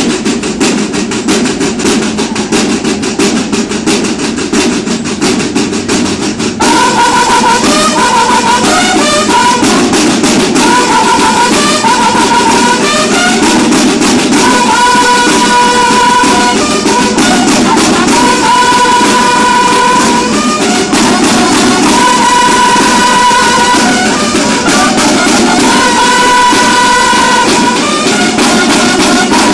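Banda de guerra (drum and bugle corps) playing: a line of marching drums beats a steady cadence alone, then about seven seconds in the bugles come in with a fanfare of held notes and short figures over the drums.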